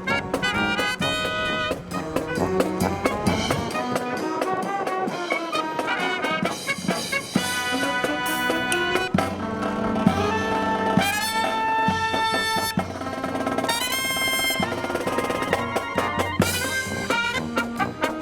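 Brass band with trumpets, trombones and drums playing. Wind buffets the microphone with a low rumble.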